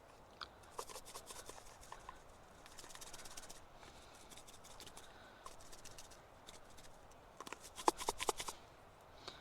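Light clicks, taps and brief rustles of food preparation, as ingredients and containers are handled. A quick run of louder clicks comes near the end.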